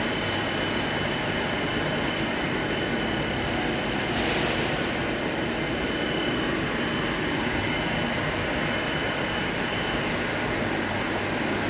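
1B240 six-spindle automatic lathe running: a steady mechanical din with a thin high whine that stops near the end.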